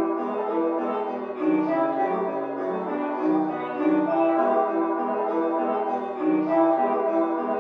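Instrumental music with a piano-like keyboard playing a repeating pattern of notes, with orchestral instruments underneath.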